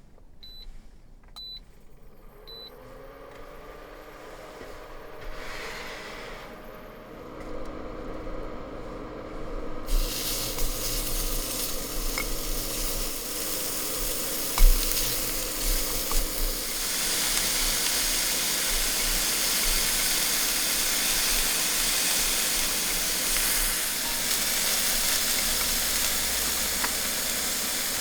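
Three short electronic beeps, then a steady hum from an induction cooktop as it heats. About ten seconds in, a loud sizzle starts suddenly as food goes into the hot pan, and frying goes on with a few knocks of stirring.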